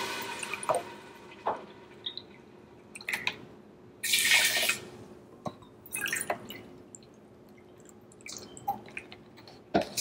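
Vegetable broth poured from a carton into a metal measuring cup in short splashing pours and drips, the longest about four seconds in, with a few light knocks from the cup and carton being handled.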